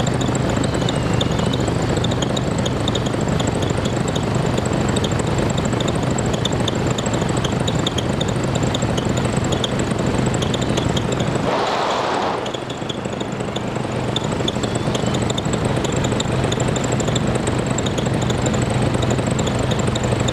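Small aircraft's carburetted piston engine and propeller running steadily in flight, with wind rushing past. About twelve seconds in, the engine hum breaks off for about a second under a short rush of air, then builds back up.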